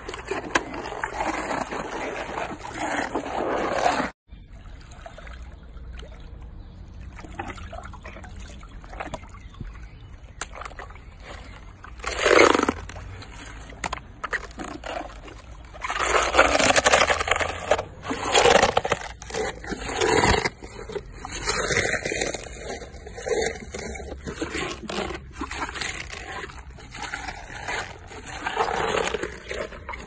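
Hippopotamus chewing a mouthful of leafy vegetables and carrots: wet, irregular chewing and crunching noises, with louder bursts around the middle and a brief break about four seconds in.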